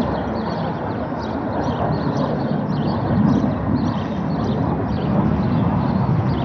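Panavia Tornado fighter jets' turbofan engines heard from the ground as a steady, loud rumble.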